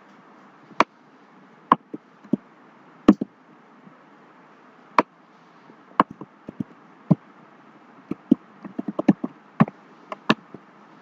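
Computer mouse clicks and keyboard key presses, mostly single sharp clicks a second or so apart, with a quick run of keystrokes about nine seconds in.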